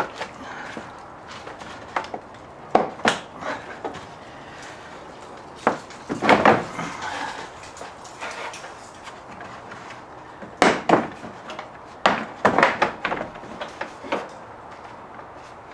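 Plastic grille clips being pried loose with a plastic trim-removal tool: scattered sharp clicks and knocks of plastic against plastic, in several short clusters, the loudest near the middle and again a little past two-thirds through.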